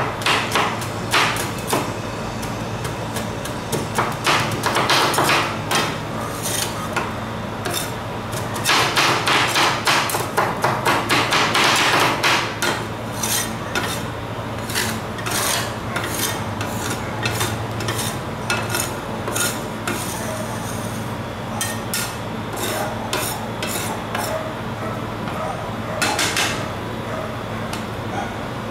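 Two metal spatulas chopping Oreo cookies on the steel cold plate of a rolled ice cream machine: rapid metal-on-metal tapping strikes in fast runs, densest about four seconds in and again from about nine to twelve seconds, then sparser taps. A steady low hum runs underneath.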